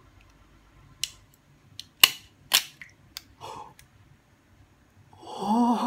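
EZCracker plastic egg cracker squeezed shut: a handful of sharp clicks and snaps as its blade cracks the eggshell and the shell halves open, the loudest about two seconds in. Near the end a drawn-out vocal exclamation of surprise.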